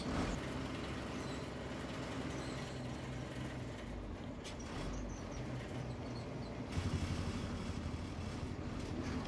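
An MSRTC bus's diesel engine runs steadily under way, heard from inside the cabin at the front along with road noise. A louder stretch of low rumbling comes about seven seconds in.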